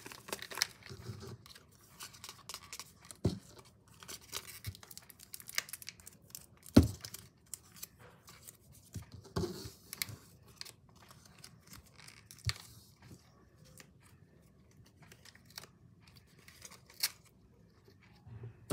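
Clear plastic sticker packets crinkling and tearing as hands handle and open them, with scattered small clicks and taps on the desk; one sharper knock about a third of the way in.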